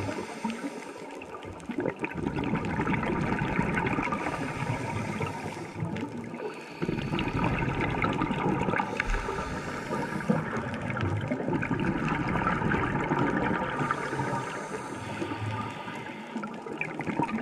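Underwater sound picked up by a dive camera: a continuous rush and gurgle of water with fine crackling, swelling and easing in long stretches.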